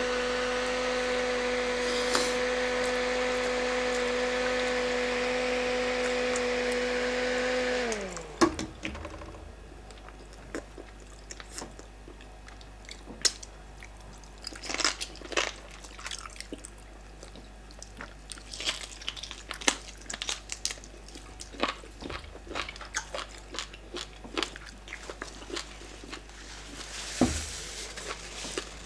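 Small handheld electric fan running with a steady whine and whoosh, switched off about eight seconds in and winding down with a falling pitch. After that, close-up eating sounds: wet chewing, lip smacks and bites of fufu and soup eaten by hand.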